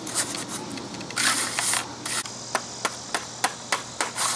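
Trowel scraping and rubbing over freshly laid cold-patch asphalt, a series of irregular gritty strokes with a longer scrape about a second in, as the loose aggregate is worked smooth at the patch's edge.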